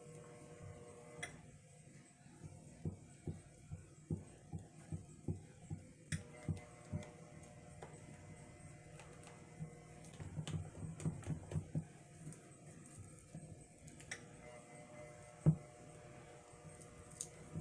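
Spatula knocking and scraping against a stainless steel bowl while stirring thick melted soap: soft knocks about two a second, a quicker run of them later, and one sharper click near the end.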